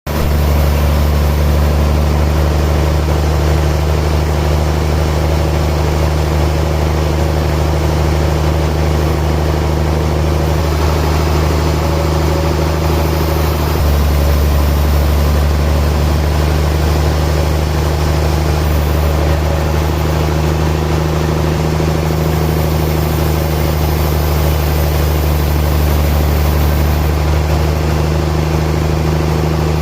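Sawmill machinery running steadily, a loud continuous low hum with overtones, its low end swelling about halfway through.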